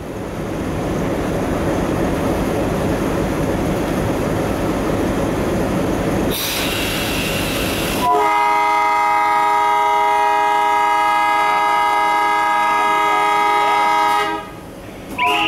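Alco WDM3D diesel locomotive heard from inside its cab: steady engine and running noise, a brief hiss about six seconds in, then a long steady blast of the locomotive's air horn, a chord of several tones held about six seconds and cut off sharply, with a short toot near the end.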